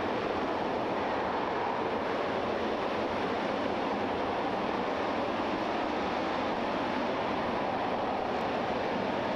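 RS-25 liquid-hydrogen/liquid-oxygen rocket engine firing on a test stand: a steady, unbroken rush of exhaust noise.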